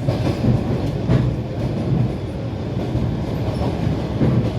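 Train wheels rumbling and clattering over the rails, heard from inside a moving passenger carriage, with a couple of sharper knocks near the start.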